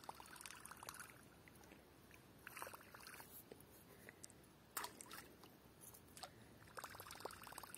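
Faint plopping and splashing of a Whopper Plopper-style topwater lure being retrieved across the water, its rotating tail blade churning the surface in about four short bursts.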